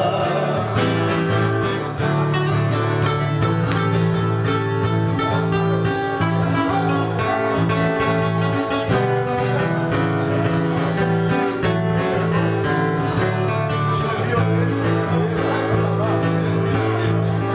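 Instrumental break of a sertanejo raiz song: two acoustic guitars strummed and picked together in a steady, even rhythm, with no singing.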